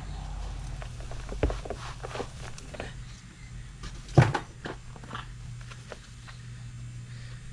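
Scattered knocks and scrapes from soil and a plant pot being handled while the pot is topped up, loudest in a sharp knock about four seconds in, over a steady low hum.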